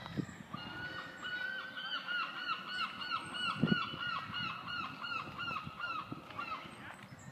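A bird calling a long, fast run of the same short note, about five notes a second for some five seconds, dropping a little in pitch near the end.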